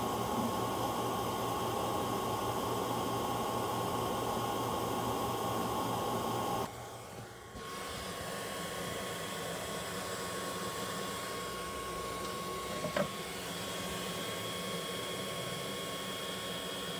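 Creality Falcon A1 Pro enclosed diode laser engraver running while it engraves wood: a steady fan-like whirr with a thin steady whine. About seven seconds in the sound drops to a quieter level of the same whirr and whine, with a single brief click a little before the end.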